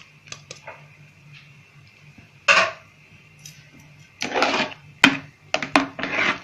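Steel ladle scraping and clinking against a metal pot while stirring thick rice kheer. There is one scrape about two and a half seconds in, then repeated scrapes and sharp clinks over the last two seconds.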